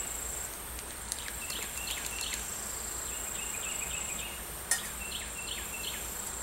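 Steady high-pitched insect drone that breaks off twice, with groups of short, quickly repeated bird chirps over it. A single sharp clack about three-quarters of the way through, likely the metal stove pot being handled.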